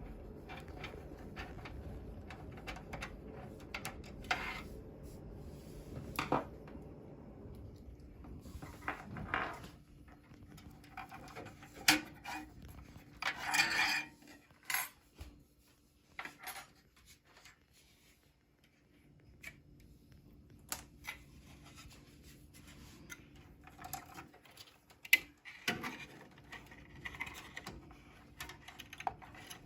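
Hands handling and fitting a graphics card into a PC: scattered sharp clicks, knocks and short scraping and rubbing sounds over a faint steady hum.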